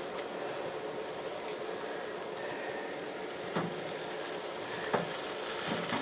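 Barbecue chicken halves sizzling steadily on the hot grate of a charcoal smoker grill, with a few light knocks as a barbecue fork moves the pieces on the grate.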